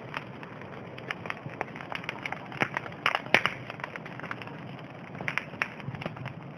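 Wood bonfire burning, crackling with irregular sharp pops over a steady hiss, a few louder pops about three seconds in and again near the end.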